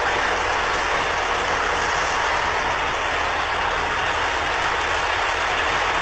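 A heavy diesel engine running steadily, with no revving.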